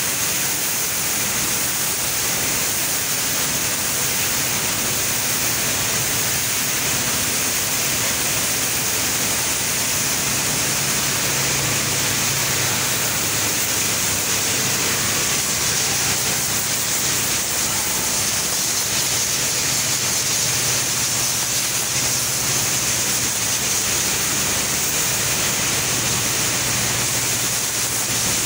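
Rice mill machinery running: a steady, even noise of milling machines and a paddy separator, with a low hum underneath.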